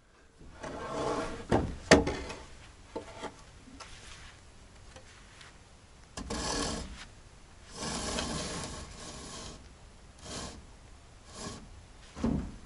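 Wood scraping and rubbing against wood in several irregular drawn-out strokes, with a few sharp knocks, the loudest about two seconds in.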